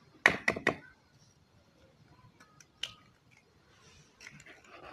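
An egg cracked against the rim of a wooden bowl: a quick run of three or four sharp cracks within half a second, followed later by faint clicks and rustling.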